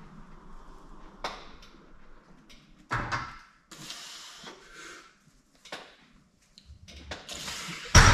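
Hard breaths and strained exhales during a heavy seated barbell overhead press, with a lighter knock about three seconds in. Near the end comes a loud metal clank, the loaded barbell being racked onto the power rack's hooks.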